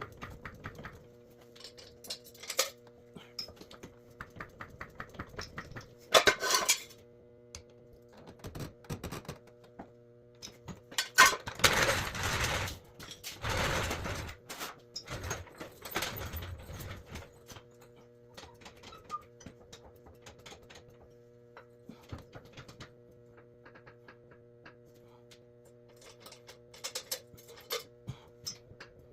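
Intermittent clattering and knocking of hard objects being handled, with a louder stretch of scraping and clatter midway, over a faint steady hum.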